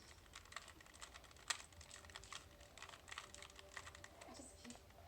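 Plastic Rubik's Cube being twisted by hand: a run of faint, quick, irregular clicks as the layers are turned, with one sharper click about a second and a half in.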